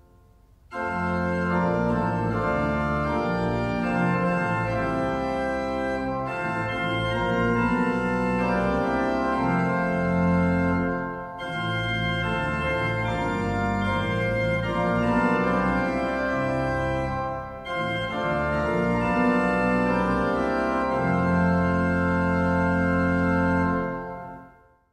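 Neo-baroque pipe organ playing phrases of sustained chords over a pedal bass of Subbass 16' and Oktave 8', with short breaks between phrases. The first phrases are on the Hauptwerk with Rohrflöte 8', Oktave 4' and Oktave 2'. About halfway through, the same music moves to the Brustwerk with Gedackt 8', Quintade 8', Prinzipal 4', Gemshorn 2' and Sifflöte 1 1/3', and near the end it stops and dies away in the room's echo.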